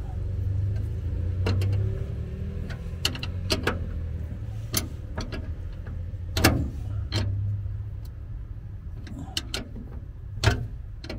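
Small open-end wrench clinking against a bolt head and the metal Rotopax mount as a bolt is turned down: irregular sharp metallic clicks, the loudest about six and a half seconds in and another near the end. A steady low hum runs underneath.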